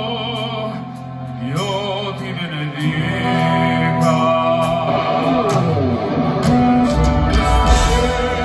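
Live male singing in an operatic style, long held notes with a wide vibrato, over sustained keyboard and guitar chords through a concert PA. About seven seconds in, the full rock band comes in with bass and drums.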